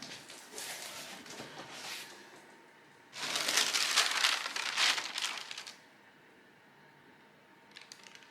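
Funko POP! packaging being handled and opened, the plastic and cardboard crinkling, loudest in a long stretch from about three to six seconds in.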